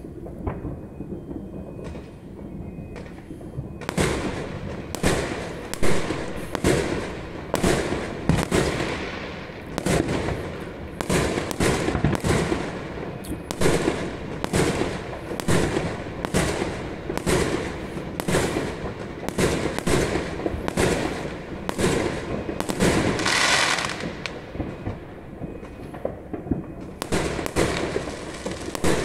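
Aerial fireworks going off in a rapid string of sharp bangs, about one to two a second, beginning about four seconds in, with a low rumble before them. A brief hiss about twenty-three seconds in, then a short lull before the bangs start again near the end.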